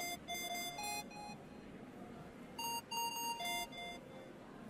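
A tune of short electronic beeping notes in two phrases, each about a second long with a gap between them.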